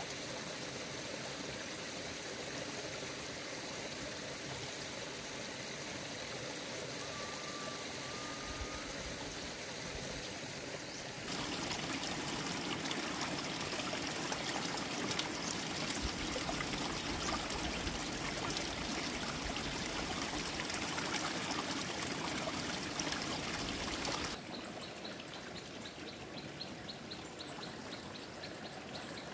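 Water running steadily, like a stream trickling and pouring over stones. It turns louder about a third of the way in and drops back abruptly near the end, where a faint high pulsing chirp joins it.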